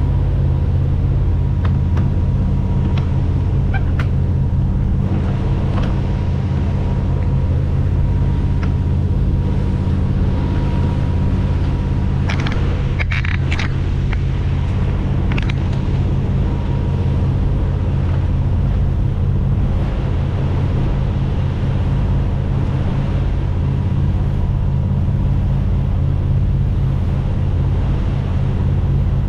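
Engines of a Luhrs 290 sportfishing boat running steadily underway, a deep even drone, with a few brief knocks about twelve to fourteen seconds in.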